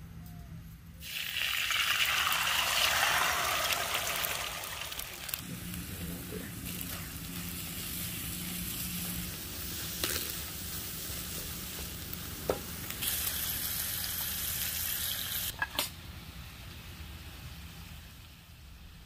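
Eggs frying in hot oil in a nonstick pan on a portable camp stove. A loud sizzle breaks out about a second in, then settles to a steady sizzle as the eggs are stirred and scrambled, with a few sharp taps of the spatula against the pan. The sizzle fades near the end.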